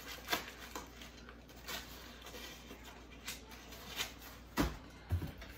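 Handling noises from a small cardboard box being turned over in the hands: scattered light taps and scrapes, with two dull thumps near the end.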